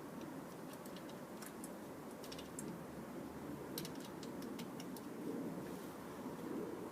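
Scattered light clicks and ticks of small parts and hand tools being handled during wiring work on an air conditioner's hard start capacitor, over a steady low background hum.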